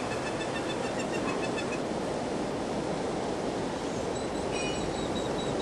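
Steady rushing outdoor ambient noise, with faint high-pitched chirps coming in near the end.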